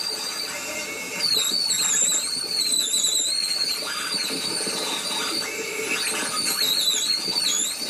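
Oscillating multi-tool with a metal-cutting blade cutting through Nidacore polypropylene honeycomb core, in sped-up footage: a strange, irritating high squeal whose pitch wavers up and down over the tool's buzz, growing stronger a little over a second in.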